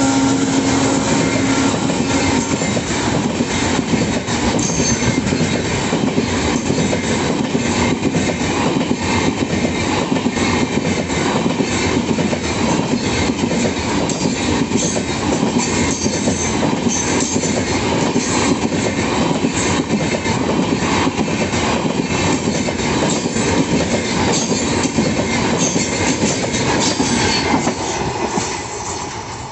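Coaches of the Sri Ganganagar–Kota special train (02982) running past close by, with wheels clattering over the rail joints and occasional brief high wheel squeals. The sound fades near the end as the last coach draws away.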